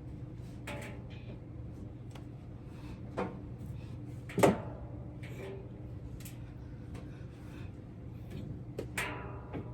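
A few short clacks and knocks of doors or household items being handled, the loudest about four and a half seconds in, over a steady low hum.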